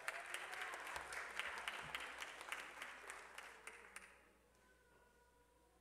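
Audience applauding with scattered individual claps, dying away about four seconds in.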